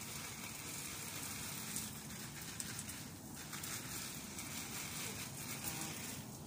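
Garden hose spraying water onto a car, a steady hiss of spray and water splashing on the bodywork.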